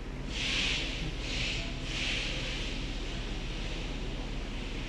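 Automatic A/C recovery-and-recharge station charging refrigerant into the car's system: a steady low hum, with three short hisses about a second apart near the start.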